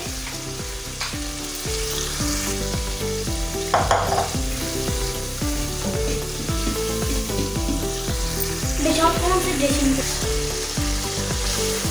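Onion-tomato masala with whole spices frying in hot oil, sizzling steadily as a wooden spoon stirs it around the pan: the bhuna stage, where the masala is fried until the oil separates.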